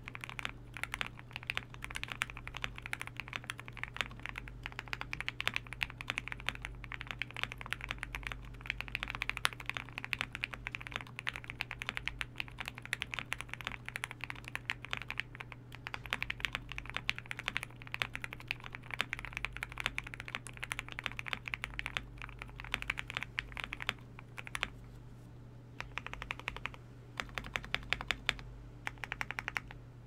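Continuous fast typing on an OwLab Jelly Epoch 75% custom mechanical keyboard with lubed C3 Equalz Tangerine linear switches, a polycarbonate plate and PBT keycaps: a dense stream of key clacks. The typing pauses briefly about halfway and again around twenty-five seconds in, over a faint steady low hum.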